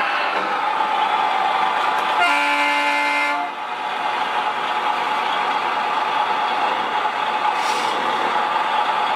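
A radio-controlled construction vehicle running with a steady motor whine, and its horn sounding once for about a second, just over two seconds in.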